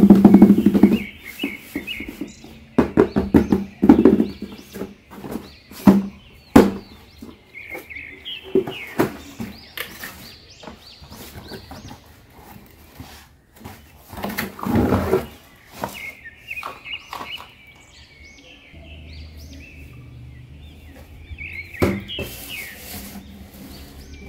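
A cardboard toy box being handled and opened, with scattered knocks, taps and rubbing, loudest near the start and again about halfway. Short, repeated high chirps sound on and off behind it.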